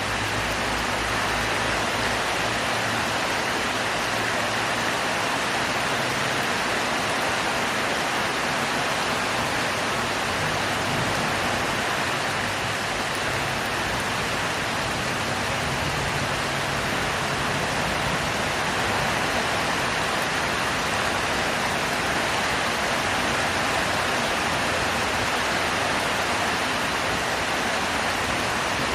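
Heavy tropical rain falling in a steady, even downpour, with a faint low hum underneath.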